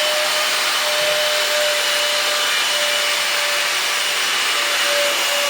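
Steady hiss with faint high whines held at a constant pitch throughout.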